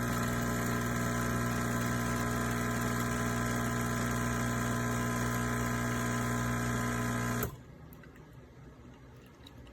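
De'Longhi La Specialista espresso machine running its pump with a steady hum that stops abruptly about seven and a half seconds in.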